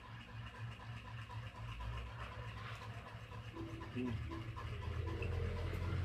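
Close-up chewing of a full mouthful of boiled egg: a steady, rubbing, wet mouth sound that grows louder toward the end.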